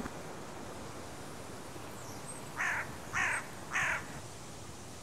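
A crow cawing three times in quick succession, each caw short and harsh, over faint steady background noise.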